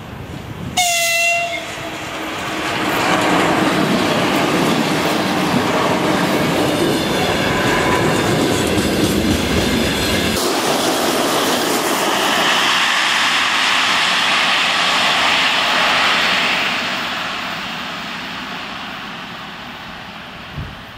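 2ES7 electric freight locomotive gives a short horn blast about a second in, then a long freight train rolls past with its wheels clattering over the rail joints. The sound changes abruptly about ten seconds in and fades away over the last few seconds.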